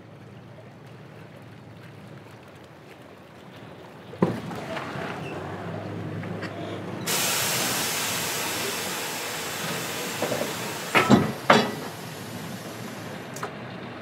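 Small car ferry's deck sounds: a low engine hum, a sudden clunk about four seconds in, then a loud steady hiss from about seven seconds that dies away near the end, with a few heavy knocks in the middle of it.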